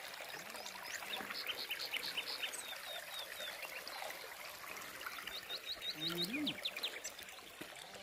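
Water trickling steadily from a fountain's pipe spouts into a concrete trough, while a bird sings two quick runs of short, high chirps, the first about a second and a half in and the second near six seconds.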